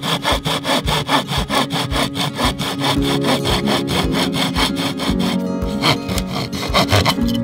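Small hand saw cutting through a thin wooden board: fast, even back-and-forth strokes, about five a second, slowing to a few separate strokes near the end.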